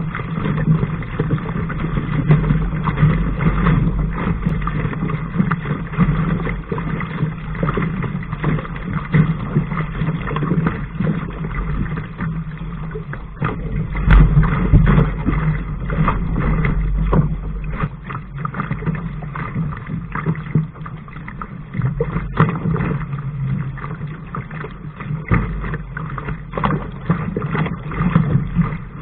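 Water rushing and slapping along a Laser sailing dinghy's hull as it sails fast, with spray spattering the deck and wind rumbling on the microphone. The sound is steady with uneven surges and many small sharp splashes.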